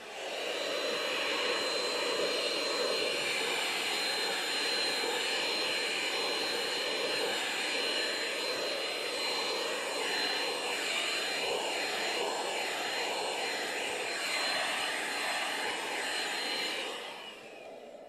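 Vacuum cleaner switched on and running steadily with a high whine, used to vacuum a cat's coat; its sound wavers about halfway through, then it is switched off near the end and winds down, the whine falling in pitch.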